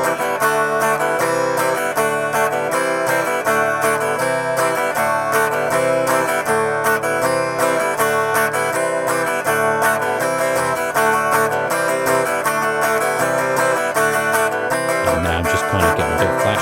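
Acoustic guitar strummed fast and steadily in a down, down, open pattern, changing between C and D chords. On each open strum the fretting hand lifts to change shape and the open strings ring.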